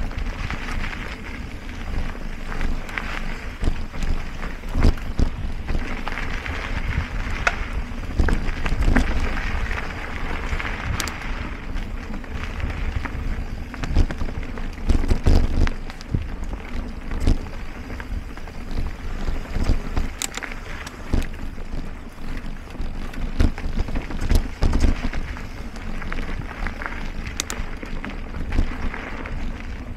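Mountain bike riding over forest singletrack, heard from a camera mounted on the rider or bike: tyres rolling on dirt and dry leaves, with frequent short knocks and rattles over bumps and a low rumble of wind on the microphone.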